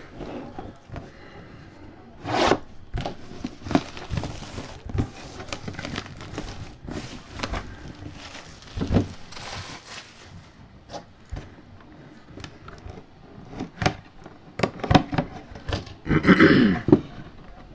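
Shrink-wrap plastic being cut and pulled off a cardboard box, with crinkling, tearing and irregular clicks and scrapes as the box is handled. There is a louder burst of handling near the end.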